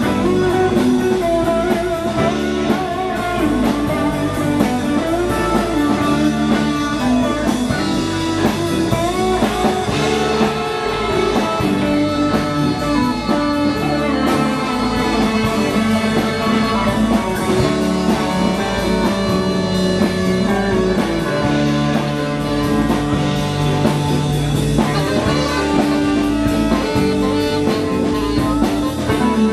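Live rock band playing an instrumental passage with no singing: electric guitars over bass and drum kit, steady and loud throughout.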